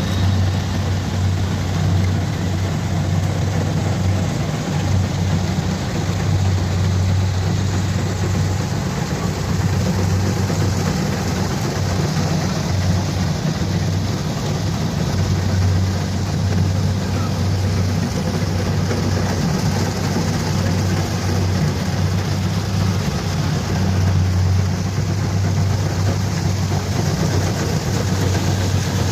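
Kubota DC-70 Plus combine harvester running steadily while harvesting rice: its diesel engine gives an even low hum under a broad haze of machine noise.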